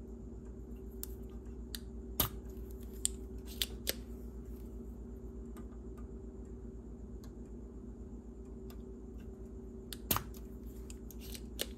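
Scattered small sharp clicks and taps from handling a circuit board and soldering tools at a workbench, a few between one and four seconds in and more near the end, over a steady low electrical hum.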